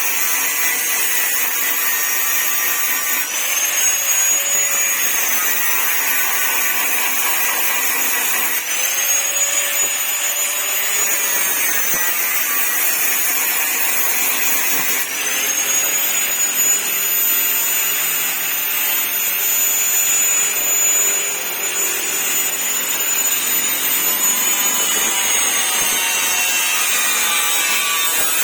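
A power tool, such as a body-shop sander or grinder, running continuously with a high whine. Its pitch rises and then falls back three times.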